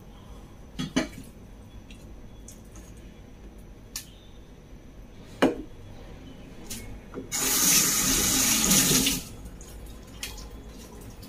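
A cleaver knocks on a wooden cutting board a few times, then a kitchen tap runs for about two seconds and cuts off.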